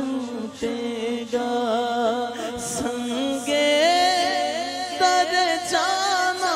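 A man singing a naat in Urdu, drawing out long wavering notes that glide between pitches.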